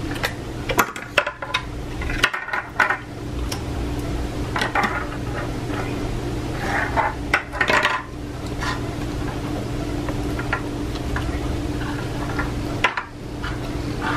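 Hands handling small plastic toy packaging and a slime cup, with irregular clicks, taps and short rustles of plastic over a steady low hum.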